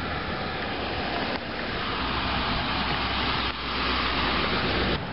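Passing road traffic: a steady rush of tyre and engine noise that grows louder about two seconds in and drops away just before the end.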